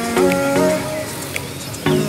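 Background music: plucked pitched notes in a repeating pattern, with a melody that steps up and down.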